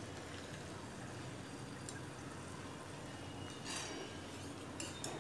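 Thin pieces of spiced dough deep-frying in hot oil in a kadhai, a steady soft sizzle, with a metal ladle stirring them and clinking against the pan a few times in the second half.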